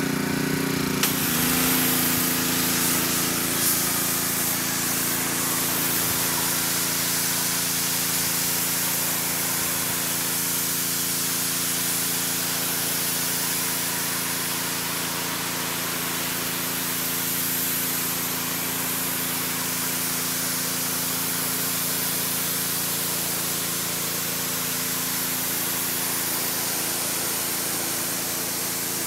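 Pressure washer spraying a steady jet of water, hissing, with the machine's motor humming steadily underneath.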